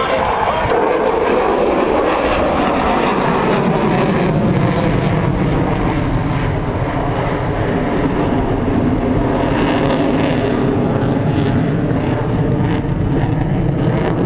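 F-16 fighter jet's engine, loud and sustained as the jet flies its display, its pitch shifting slowly as it passes.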